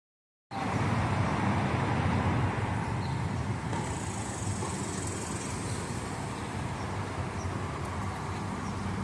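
Steady vehicle rumble, starting abruptly about half a second in after dead silence.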